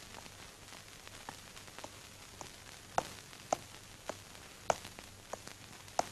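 Footsteps: sharp, evenly spaced steps, a little under two a second, getting louder as the walker comes closer.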